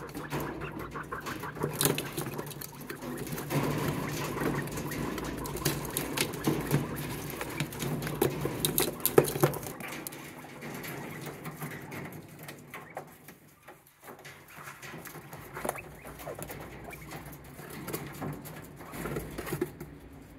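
Quail pecking at feed and black soldier fly larvae in a red plastic feeder dish: quick, irregular taps and scratching of beaks on plastic. The pecking is busiest for the first ten seconds and turns sparser after.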